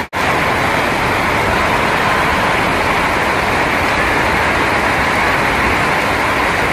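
Heavy rain falling in a steady, dense hiss, with a brief break just after the start.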